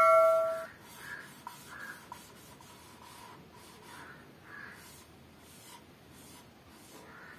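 Marker pen drawing on a whiteboard: short, faint rubbing and squeaking strokes, spaced irregularly. At the start, a bright bell-like chime rings out and fades within the first second.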